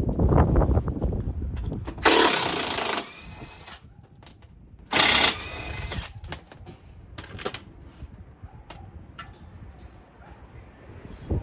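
Impact wrench hammering on the control-arm bolts in short runs, with a couple of loud bursts about two and five seconds in.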